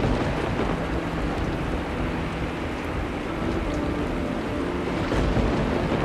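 Steady rain falling, with low thunder rumbling; the rumble swells near the start and again about five seconds in.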